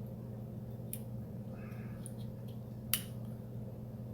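Small clicks of the hammer and its spring being worked into a Mossberg 500's plastic trigger housing: one light click about a second in and a sharper one near three seconds, with a brief faint scrape between them. A steady low hum lies under it all.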